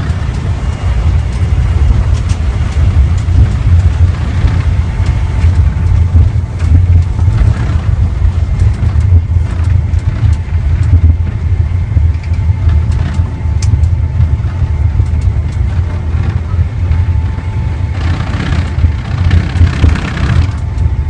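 Steady low rumble in a Boeing airliner's cockpit as the jet taxis after landing. A faint steady tone and a few light clicks sound over it.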